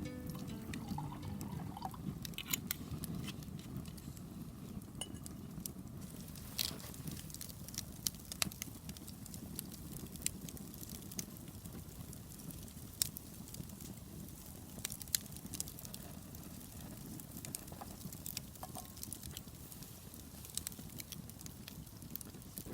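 Wood bonfire burning: a steady low rush with irregular sharp crackles and pops scattered through it.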